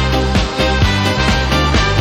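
Instrumental music with a steady beat: a bass line and sustained pitched notes over drum hits about twice a second.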